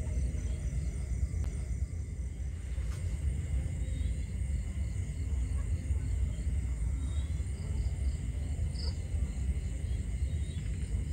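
Steady low rumble, like wind buffeting the microphone, with night insects trilling continuously in the background.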